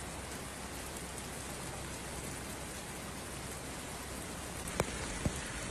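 Steady hiss of heavy rain, with two short sharp clicks near the end.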